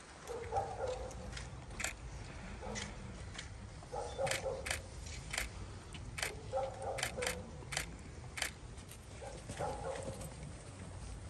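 Quiet open-air gathering: scattered sharp clicks of shoes and footsteps on paving stones. Short, mid-pitched calls recur every couple of seconds.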